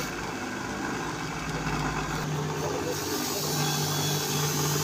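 Electric bench grinder running steadily, with a small metal part held against its spinning wheel: a constant motor hum with a hiss from the wheel.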